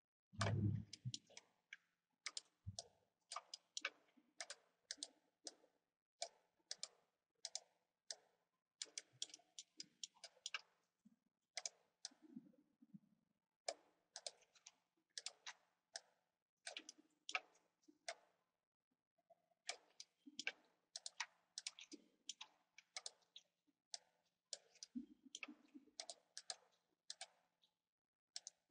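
Computer mouse clicking repeatedly: short, sharp clicks at irregular spacing, often several in quick succession.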